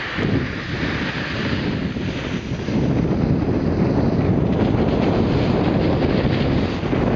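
Wind buffeting the microphone of a camera carried down a ski run at speed, with the scrape of sliding over packed snow mixed in; it grows louder about three seconds in.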